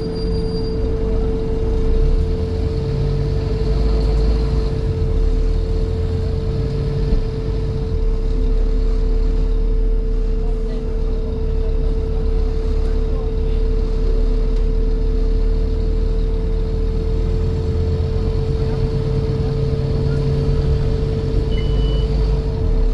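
Scania N230 bus running on the move, with a steady buzzing tone that does not change in pitch, heard over the low engine and road rumble, which rises and falls.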